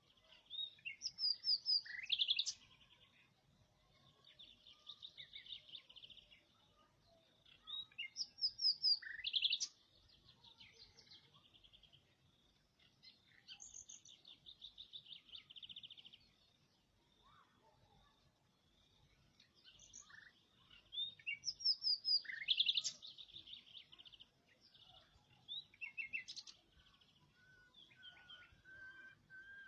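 A songbird singing in repeated phrases of rapid trills and sharp chirps, a burst every several seconds with quieter twittering in between.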